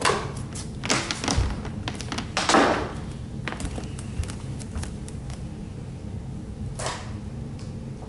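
Handling knocks and thumps from a canister vacuum and its power cord being moved about, with a brief scraping rustle about two and a half seconds in and another knock near the end, over a low steady hum.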